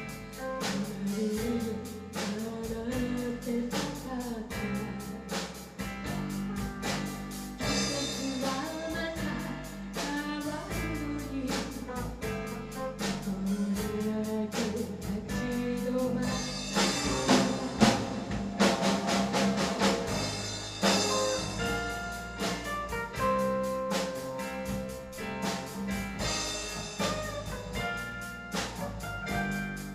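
Live rock band playing a song: a woman singing lead into a microphone over electric bass, drum kit, keyboard and electric guitar, with a steady drum beat.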